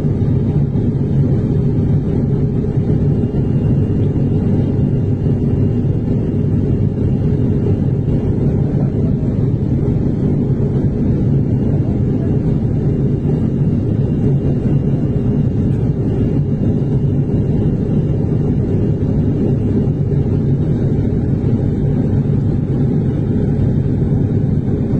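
Steady low drone of a high-wing turboprop airliner's engines, heard from inside the passenger cabin in flight.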